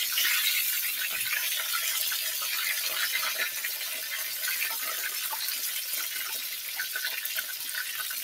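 Breaded whole fish sizzling in hot oil in an electric skillet, a steady crackling hiss, with a few faint knocks of wooden spatulas as the fish is turned.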